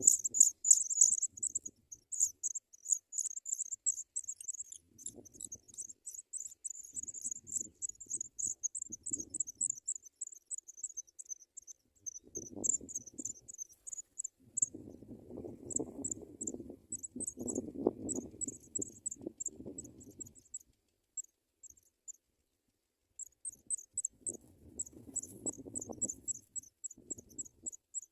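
Rapid, high-pitched chirping: many short pulses a second, in runs broken by brief pauses. Soft low rustling comes and goes underneath.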